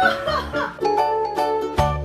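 Background music with a steady beat. A short laugh sounds over it in the first half-second, and about a second in a new tune with clear held notes takes over.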